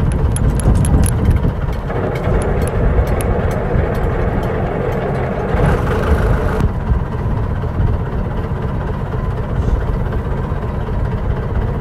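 Small fishing boat's engine running steadily: a loud, low rumble.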